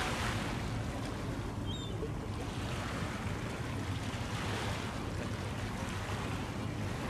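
Outdoor waterside noise: wind on the microphone and water washing, rising in slow swells, over a steady low rumble.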